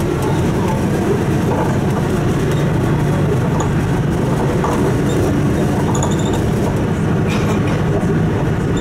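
City bus driving along a narrow street, heard from inside: a steady rumble of engine and road noise with some rattle.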